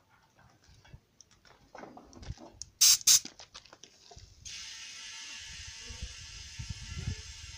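Compressed air at a car tyre just repaired with plug strings: a few light clicks and two short, sharp hisses, then a steady hiss with a faint whine that starts suddenly about halfway through, as the tyre is re-inflated to test the repair.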